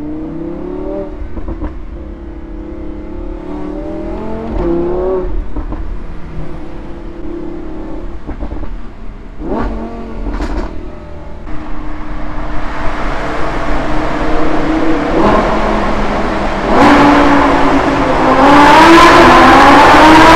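Lamborghini Huracán LP 610-4's naturally aspirated V10 heard from the open cockpit while driving: the engine note climbs and falls back again and again through gear changes, with two quick rising revs about halfway. It grows steadily louder, and in the last few seconds, in a road tunnel, comes hard acceleration, the loudest part.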